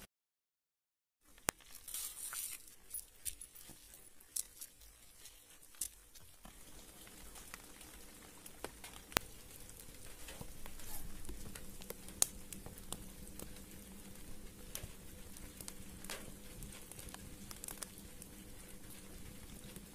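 Leaves rustling and crinkling with scattered light ticks and crackles as caterpillars are pulled out of rolled banana leaves by hand, over a faint steady hum.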